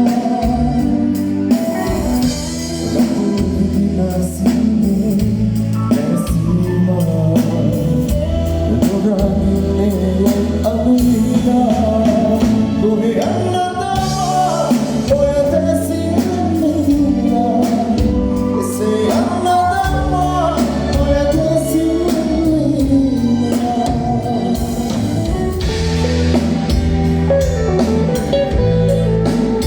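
A band playing a song live, with a voice singing a wavering melody over the instruments.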